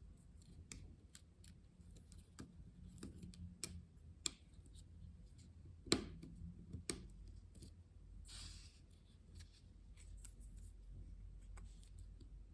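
Small, faint clicks and light scraping from handling the tiny plastic parts of a MacBook butterfly key mechanism as it is fitted onto the keyboard. The sharpest click comes about six seconds in, and a brief scratchy swish about eight seconds in.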